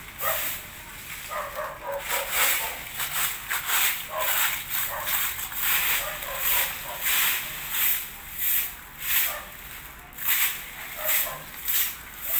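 Broom sweeping dry fallen leaves across concrete: a steady run of short, scratchy strokes, about one and a half a second.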